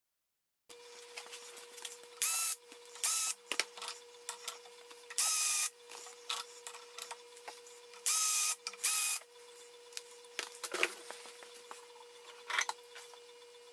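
Five short scraping strokes on a small metal workpiece held in a bench vise, each about half a second long, with small clicks between them and a faint steady hum underneath.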